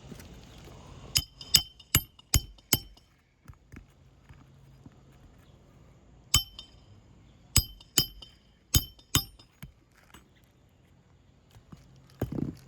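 Roofing hammer driving nails to fasten a replacement asphalt shingle: sharp metallic strikes that ring. A run of five quick blows comes about a second in, then a single blow and two pairs of blows later on.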